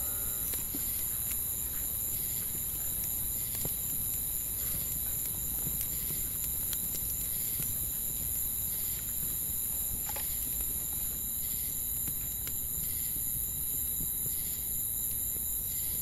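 Night ambience of insects singing: a steady high-pitched drone with a faint chirp repeating about every two-thirds of a second. A few soft crackles come from a campfire's burning embers.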